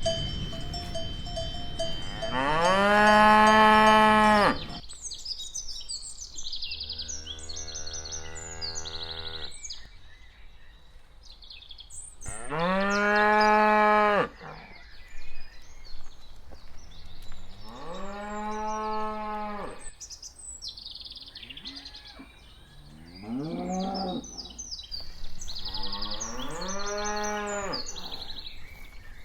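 Cows mooing: six long calls a few seconds apart, one of them deeper than the others, with short high chirps in between.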